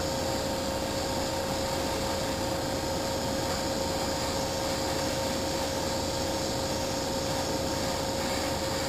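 Hobby spray booth's exhaust fan and the airbrush's air running together: a steady rushing hiss with a constant hum.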